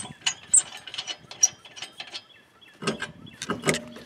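Lug nuts being loosened and taken off a car wheel with a lug wrench: a run of sharp, irregular metallic clicks and clinks, with a cluster of louder knocks about three seconds in.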